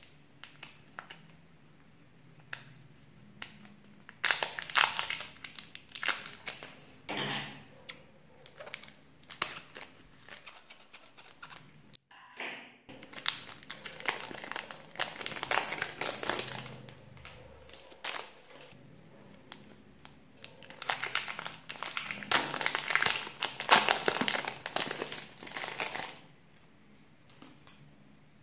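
Thin clear plastic bag crinkling as fingers squeeze and open it, in several bursts a few seconds long.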